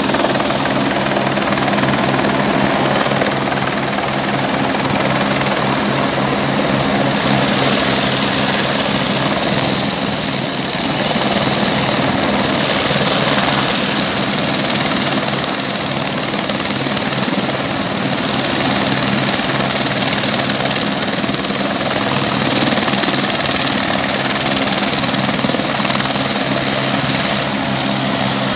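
Light helicopter hovering and setting down on a landing pad, its turbine and rotors running loud and continuous over a steady low hum.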